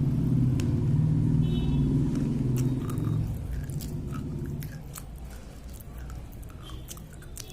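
Slate pencil being bitten and chewed: sharp, crisp crunching clicks, coming thicker in the second half, over a low rumble that fades away about halfway through.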